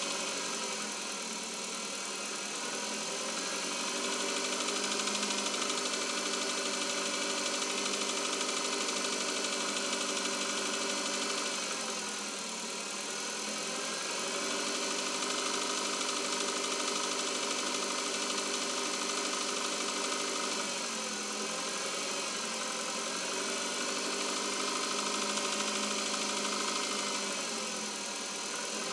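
Chevrolet Cobalt four-cylinder petrol engine idling cold with a knock from the engine, which the owner notes only while it is not warmed up. The engine speed sags briefly and picks back up a few times.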